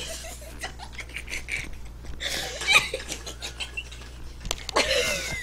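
Quiet giggling and snickering with short, indistinct voice sounds and a few small clicks; a louder voiced sound comes near the end.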